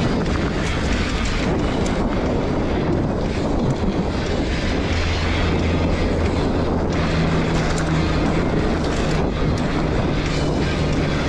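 Wind buffeting a GoPro microphone as a Trek Stache 7 mountain bike runs fast down a dirt singletrack, with tyre roll and frequent sharp clicks and rattles from the bike.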